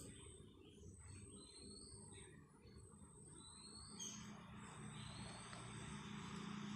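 Very faint sounds: a few short rising chirps, like birds calling in the background, and from about four seconds in a soft hiss of onion-tomato masala sizzling in oil in the wok.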